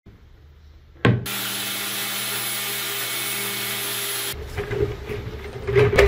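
A sharp knock, then a loud steady hiss for about three seconds that cuts off suddenly. After it, wire mesh rustles and clicks against a plastic barrel as it is fitted around it by hand.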